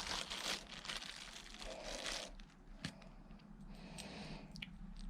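Packaging crinkling and rustling as it is handled, loudest in the first couple of seconds, then a few light clicks.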